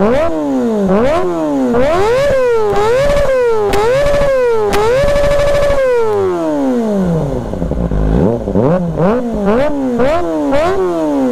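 2022 Kawasaki ZX-25R's 250 cc inline-four revved in quick throttle blips, the pitch climbing and falling with each. About five seconds in it is held steady at high revs for about a second, then falls back toward idle before another run of quick blips.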